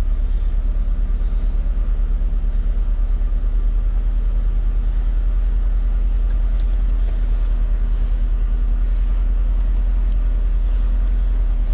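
A car engine idling steadily, a low even drone with a slight rapid pulse.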